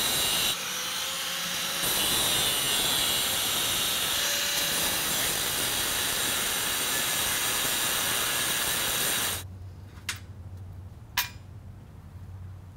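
Angle grinder with a cutoff wheel cutting into steel: a steady high-pitched grinding whine that eases briefly about half a second in and stops about nine seconds in. Two light knocks follow near the end.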